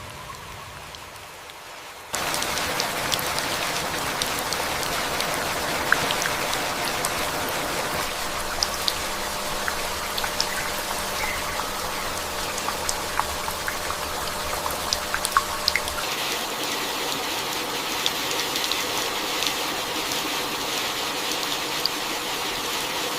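Heavy tropical rain falling steadily, a dense hiss with individual drops ticking through it. It starts abruptly about two seconds in after a quieter stretch, and turns brighter and hissier about two-thirds of the way through.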